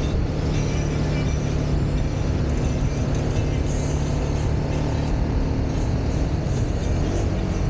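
Motorcycle engine running steadily at cruising speed, with wind rush on the microphone.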